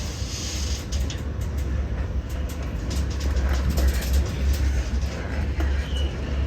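Freight train moving slowly on harbour tracks: a steady low rumble with scattered clanks and knocks.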